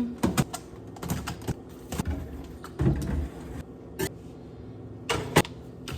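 Food containers being handled and set down on refrigerator shelves: a string of irregular knocks and clunks with handling noise between them, the loudest two close together near the end.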